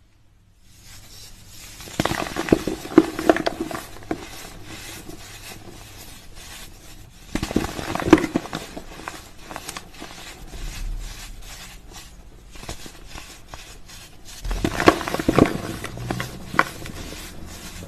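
Slime being squeezed and kneaded by hand: a dense run of small crackling pops and clicks, with three louder bursts about two, seven and a half, and fifteen seconds in.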